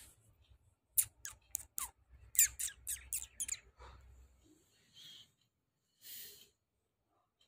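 Bird chirping: a quick run of short, sharp chirps, each sliding steeply down in pitch, four and then five in a row, about one to four seconds in.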